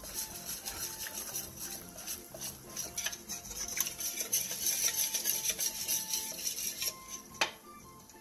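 Wire whisk stirring a starch-and-water slurry in a stainless steel mixing bowl, its wires scraping and rattling against the metal in a fast continuous clatter. The whisking stops near the end with one sharp clink of the whisk against the bowl.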